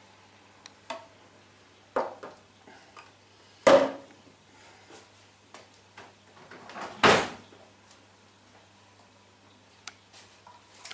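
Kitchen handling sounds: scattered light clicks and knocks, with two louder knocks about four and seven seconds in, over a faint low hum.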